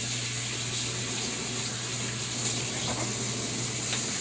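Kitchen tap running steadily into the sink while hands are washed under it, over a steady low hum.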